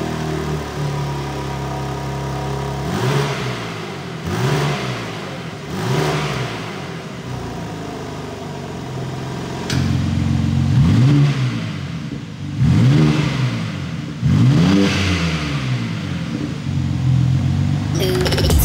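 BMW M3 Competition Touring (G81) twin-turbo straight-six idling at a standstill and revved in three short blips, each rising and falling back, with its exhaust flaps closed because the ASR CB2 flap module is inactive. About ten seconds in the idle steps up louder and three more, louder blips follow.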